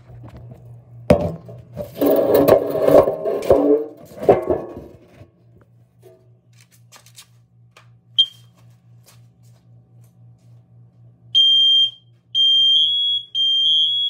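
Kidde combination smoke and carbon monoxide alarm under test: after loud knocks and rustling in the first few seconds, one short high beep as the test button is pressed, then a few seconds later the alarm sounds in loud, long high beeps about a second apart.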